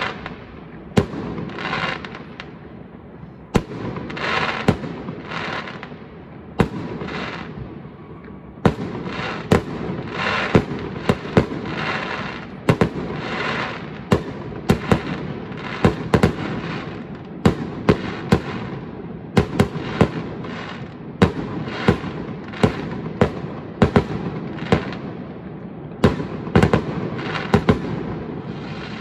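Aerial fireworks display: shells bursting with sharp bangs, spaced a second or two apart at first and coming two or three a second from about nine seconds in, with a continuous noisy hiss between the bangs.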